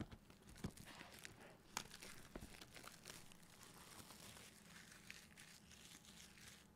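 Faint rustling and scraping of hands handling and turning a cardboard product box, with a few light knocks in the first couple of seconds.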